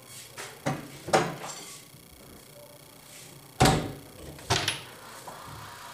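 Kitchen cabinet doors with MDF fronts being opened and shut: a few light clicks and knocks in the first second and a half, a louder knock about three and a half seconds in, then two more clicks just after.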